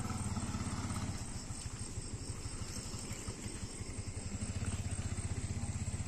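A motorcycle engine idling close by, a steady rapid low pulse that keeps on without change.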